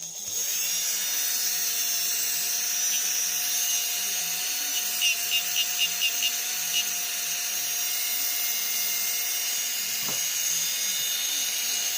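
Small brushed DC motor of a Bosch 10.8 V cordless drill/driver switched on and running at a steady speed with a high whine, reassembled after its commutator was cleaned but without its textolite thrust washer. A short burst of rapid clicks comes about halfway through.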